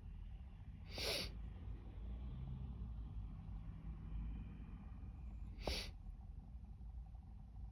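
A woman sneezing twice: a short, sudden, hissy sneeze about a second in and another, slightly louder, a little under five seconds later.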